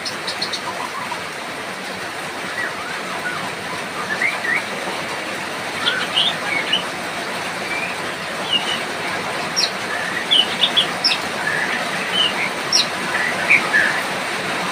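White-rumped shama (murai batu) singing in short, scattered whistles and chirps, many sliding in pitch, over a steady hiss of falling rain.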